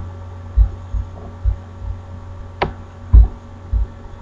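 A steady electrical hum and buzz, with irregular dull low thumps about every half second and one sharp click about two and a half seconds in.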